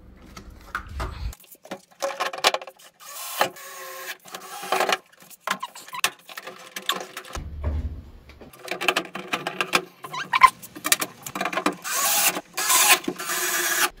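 Plastic parts of a Samsung top-loading washing machine being handled and fitted back together during reassembly: irregular clicks, knocks and rattles, busiest near the end.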